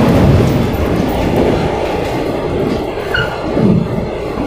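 JR 115 series electric train running at speed across a railway bridge, heard from the driver's cab: a loud, steady rumble of wheels on rails.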